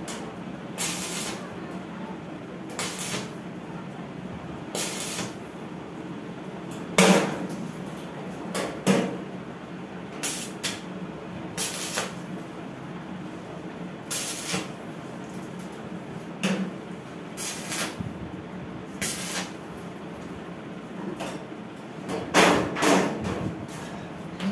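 Stick (arc) welder tack-welding steel: short crackling bursts of the arc, each under a second, repeating every second or two over a steady low hum.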